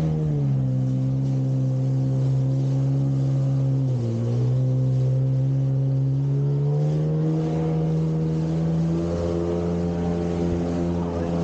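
Jet ski engine running under way, its pitch falling in the first second, dipping briefly about four seconds in and climbing back up around seven seconds in, over the rush of water spraying off the hull.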